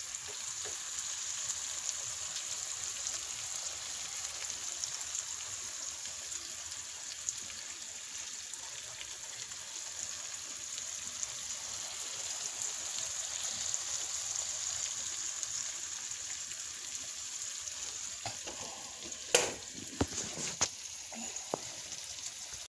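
Shrimp scampi sizzling in a frying pan: a steady, crackling sizzle of bubbling fat, with a few sharp knocks near the end.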